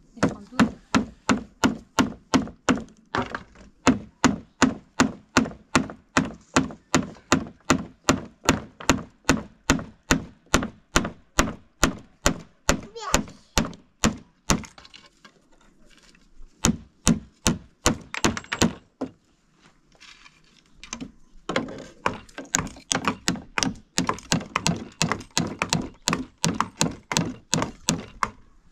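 Hammer driving nails into wooden door planks: steady strikes about two a second, with two short breaks past the middle.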